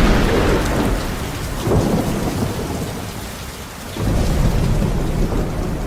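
Thunderstorm: heavy rain with rolling thunder, swelling again about four seconds in.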